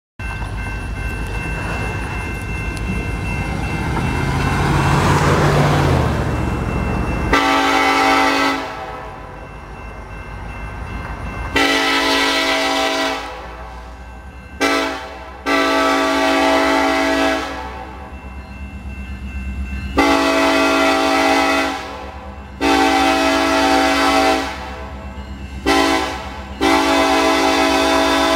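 A diesel locomotive's multi-tone air horn on a BNSF SD70ACe leading a coal train sounds a series of blasts, mostly long ones with a few short ones: the grade-crossing warning as the train approaches. Before the horn starts, about seven seconds in, there is a steady rushing noise with a low rumble.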